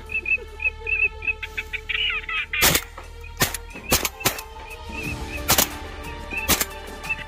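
Shotguns firing at flying ducks: about six shots in quick succession, starting about two and a half seconds in. The shots come over steady background music and high repeated chirping calls.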